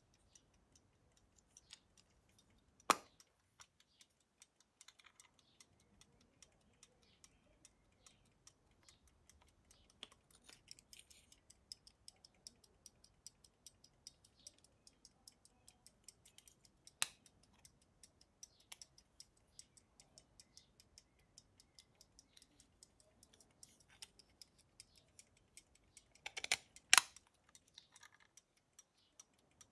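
Antique verge fusee pocket watch ticking, a fast, even train of faint ticks. Three much louder clicks from the hinged case being handled stand out: about three seconds in, in the middle, and the loudest, a quick double click, near the end.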